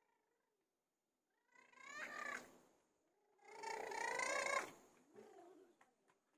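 A small child's high voice, faint, giving two drawn-out wordless calls, the second longer and wavering, about a second and a half and three and a half seconds in.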